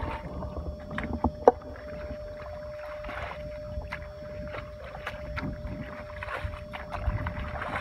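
A plastic bucket scooping and throwing out water from a shallow muddy pit, with water splashing and sloshing at each scoop. There is a sharp knock about one and a half seconds in, the loudest sound here.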